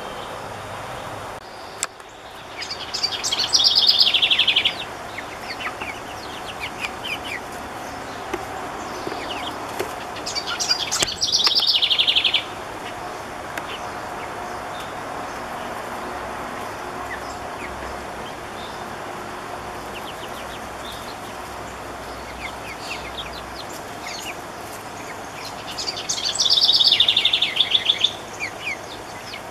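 Birds chirping: a loud, rapid, high trilling call comes three times, each about two seconds long, with faint scattered chirps in between.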